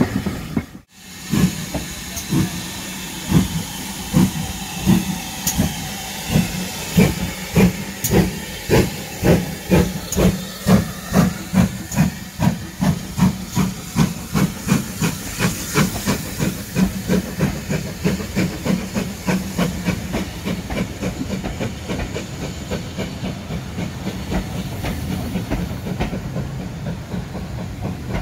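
GWR Manor class 4-6-0 steam locomotive 7820 Dinmore Manor pulling away from a station with its train. Its exhaust beats start a little under a second apart and quicken steadily as it gathers speed, over hissing steam, and are loudest as the engine passes.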